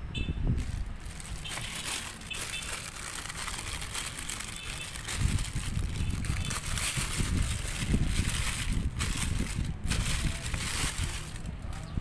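Plastic courier mailer bag crinkling and rustling in the hands as it is pulled open, in many short irregular bursts, over a steady low rumble.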